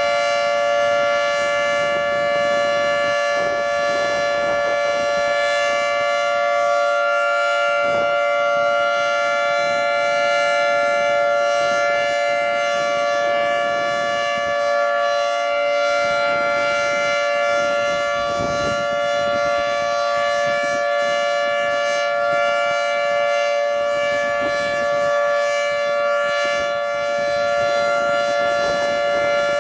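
Federal Signal 2T22 dual-tone electromechanical outdoor warning siren sounding steadily at full speed, its two rotors giving a loud, sustained two-note chord that holds its pitch.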